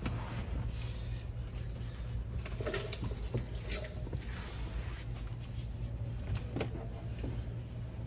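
Plastic interior trim being handled, with a few short clicks and knocks about three to four seconds in and again near seven seconds, over a steady low hum.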